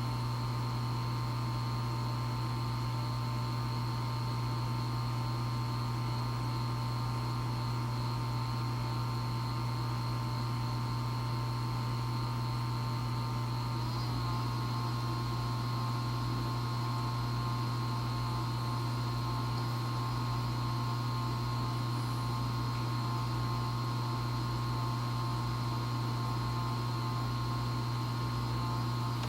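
EcoTech Marine Vortech MP60 propeller pump running on constant mode, giving a steady low hum with high whines over it. About halfway through, one whine wavers briefly and then settles on a clearer, steadier pitch: the varying noise that the owner counts as a fault.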